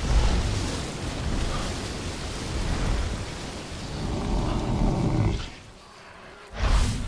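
Film sound effects of a giant buffalo creature in a river: a heavy rush of water streaming off its body over a deep rumble, fading after about five seconds. A short, loud blast comes near the end.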